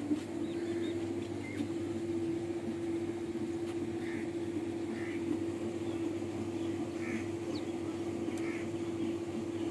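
Massey Ferguson 260 tractor's diesel engine running with a steady, even hum. A bird gives about five short calls, spaced a second or two apart.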